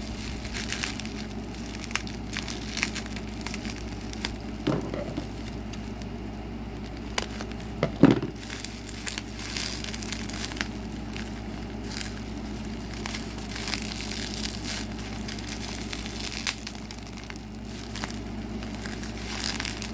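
Bubble wrap and packing tape crinkling and crackling as a tightly taped package is picked at and pulled by hand, with scattered small clicks and one louder knock about eight seconds in.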